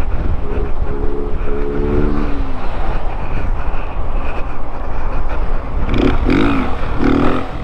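Wind noise on the microphone from riding a Honda 160 cc single-cylinder motorcycle, with the engine running under it. A steady pitched tone holds from about half a second in to about two seconds in.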